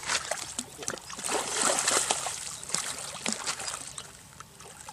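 A big hooked fish thrashing and splashing at the water's surface in irregular bursts, loudest about two seconds in and dying down near the end.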